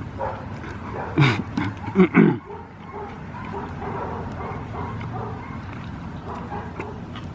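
A dog barking: a quick run of short barks between about one and two and a half seconds in, over a steady low hum.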